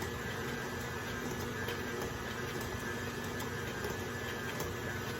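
Electric mixer running steadily while creaming pound-cake batter.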